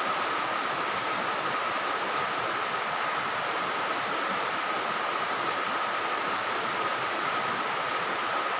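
Steady background hiss with a thin, steady high whine running through it, unchanging throughout.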